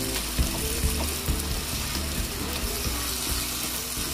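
Chicken curry with milk sizzling and bubbling in a frying pan as it thickens over a high flame. A wooden spatula stirs it, with many short scrapes and taps against the pan.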